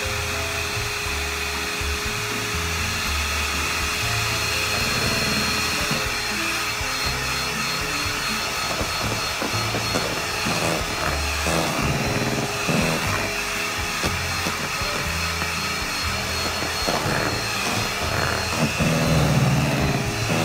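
Electric hand mixer running steadily at high speed, its beaters whipping egg-and-sugar cake batter in a steel pot, with background music underneath.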